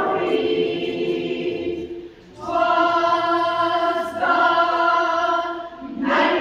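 A barbershop chorus singing a cappella in close harmony, breaking off briefly about two seconds in and then holding long chords.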